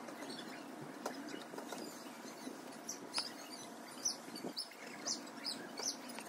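Small birds chirping: short, high chirps, several a second, growing more frequent about halfway through, over a faint steady background noise.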